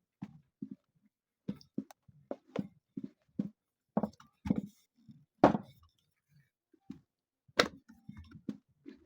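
Mandazi dough being rolled out and handled on a board: a run of irregular light knocks and thumps, with two louder knocks about five and a half and seven and a half seconds in.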